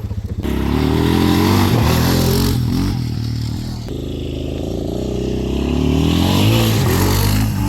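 Suzuki Vinson 500 ATV's single-cylinder four-stroke engine revving up and down under a rider. It rises in pitch about a second in, eases off around the middle, and climbs again near the end.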